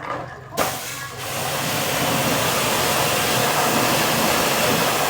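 A steady, loud hiss of a high-pressure water spray jet cleaning washing-machine parts. It starts with a click about half a second in and builds to full strength within the next second.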